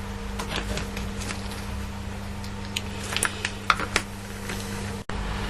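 Scattered light clicks and taps of wiring and small tools being handled on a workbench, over a steady low hum.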